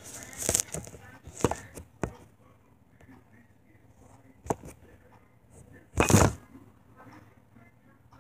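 Handling noise as a phone is set down on a granite countertop: rubbing and several knocks, then soft sounds of red slime being squeezed and kneaded by hand, with one loud, short noisy burst about six seconds in.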